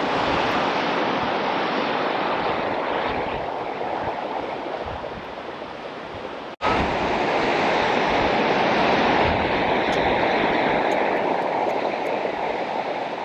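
Steady rushing of a small waterfall pouring over a low concrete weir into a shallow rocky stream. The sound cuts out for an instant about six and a half seconds in, then carries on.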